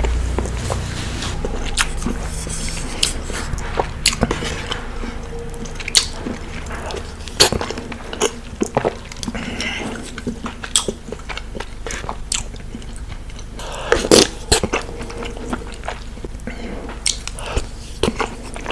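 Close-miked eating sounds of a person chewing Indian sweets: irregular wet mouth clicks and smacks.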